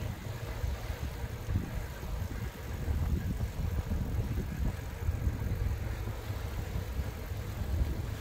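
Wind buffeting the microphone of a camera carried on a moving bicycle: a low, uneven rumble that swells and dips.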